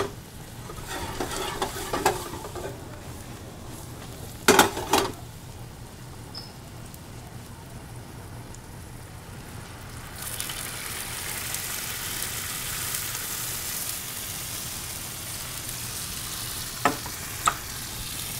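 Mushrooms and honey sizzling in a stainless skillet over a high gas flame. About ten seconds in the sizzle turns suddenly louder and hissier as sherry vinegar is poured into the hot pan. There are a couple of sharp knocks around four seconds in and two near the end.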